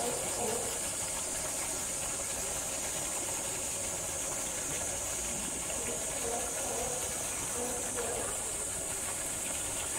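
A steady high-pitched hiss that holds at one level throughout, with faint voices in the background.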